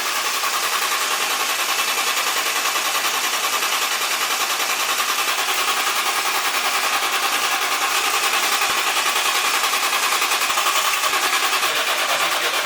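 Turbocharged 1.5JZ inline-six being cranked on its starter motor, a loud, steady, rapid, even chatter as it turns over without settling into a run.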